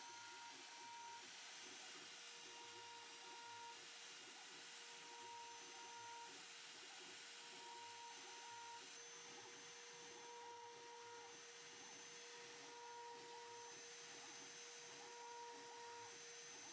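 Small CNC milling machine running a cut in plastic, faint: a steady whine with higher motor tones that switch on for about a second and off again roughly every two and a half seconds as the axes move.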